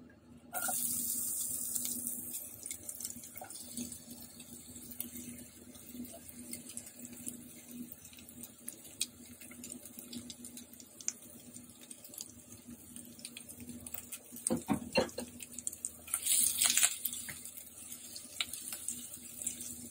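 Sliced onion, shishito pepper, garlic and curry leaves sizzling in hot oil in a frying pan, the hiss starting about half a second in as they drop in and loudest at first. A spatula scrapes and knocks against the pan as they are stirred, most of all near the end.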